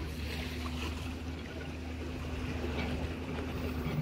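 A steady low motor drone with one constant hum, over a faint noisy hiss.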